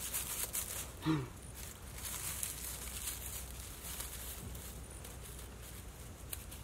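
Rustling and crackling of long grass stems as they are pressed and tucked into a thatched roof by hand, with a brief low vocal sound about a second in.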